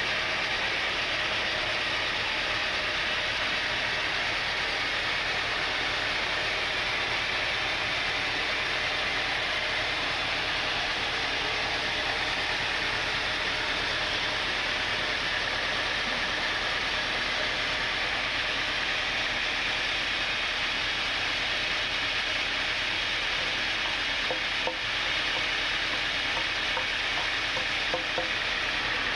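Sawmill saw cutting through a mahogany log: a steady, even noise of sawing.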